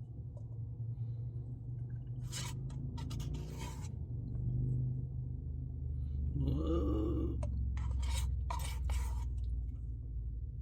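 Close-up eating sounds from a Dairy Queen Blizzard: scraping and chewing noises in short bursts, with a brief hummed vocal sound about two-thirds of the way through.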